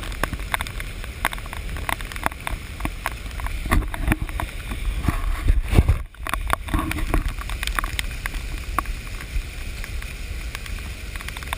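Muffled low rumble heard through a GoPro's waterproof case as it is carried by hand, with many irregular sharp taps and knocks on the case. There is a brief drop-out about six seconds in.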